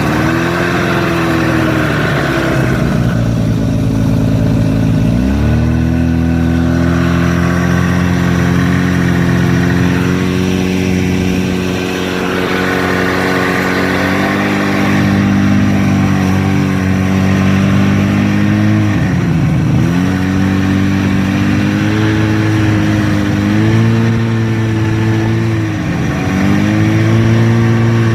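Buran snowmobile's two-stroke engine running under way, with steady pitch changes as the throttle varies. The pitch rises sharply about five seconds in, then dips and recovers twice, near twenty and twenty-six seconds.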